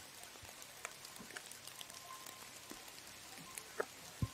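Light rain: scattered drops ticking sharply over a faint steady hiss, with one dull thump near the end.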